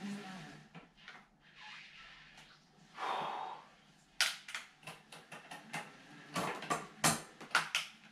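A road bike on cycling rollers clattering: a string of sharp, irregular clicks and knocks that starts about four seconds in, with a soft rushing hiss just before.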